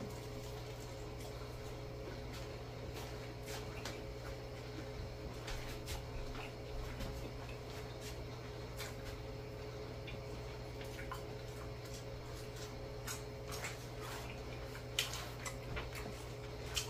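A person chewing a sauced fried chicken wing: faint wet clicks and smacks of eating, a little louder about fifteen seconds in, over a steady low hum.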